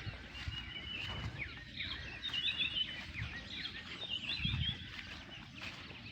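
Several small birds chirping and trilling together in high, quick notes, busiest in the middle, over a low background rumble with a few soft low thumps.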